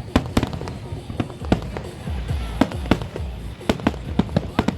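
Aerial fireworks shells bursting in a rapid, irregular string of sharp bangs, several a second, over a steady low rumble.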